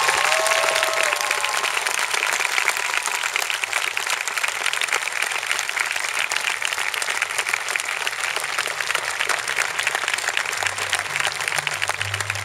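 Large outdoor audience applauding steadily: a dense wash of many hands clapping.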